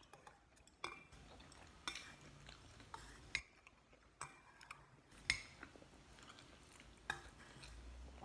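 Metal chopsticks clinking against a stainless steel bowl several times at uneven intervals while noodles are picked up, with quiet chewing in between.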